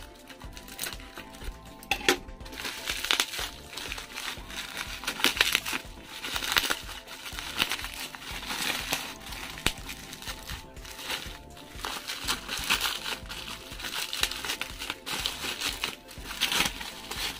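Plastic bubble wrap crinkling and crackling in irregular bursts as it is cut open with scissors and pulled off a black metal side-mirror bracket.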